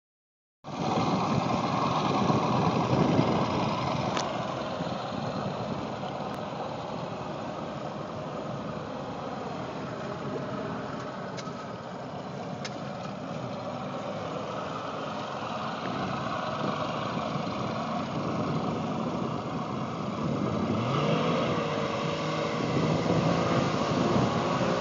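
Boat outboard motor running, with a steady rush of wind and water noise, loudest at the start. About 21 seconds in, an engine revs up with a rising tone that then holds steady.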